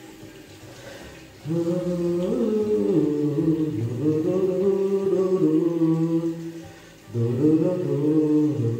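A voice singing a slow melody in long held notes, starting about a second and a half in, with a short break about seven seconds in before a second phrase.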